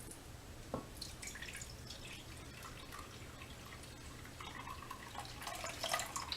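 Soy milk being poured into a mixing bowl: a faint trickle with scattered drips and splashes, coming in two spells, with a small knock just under a second in.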